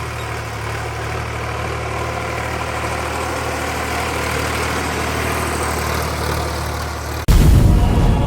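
Three-cylinder diesel engine of a Sonalika DI 745 III tractor running steadily. Near the end it cuts off suddenly to a louder, bass-heavy sound, likely the start of music.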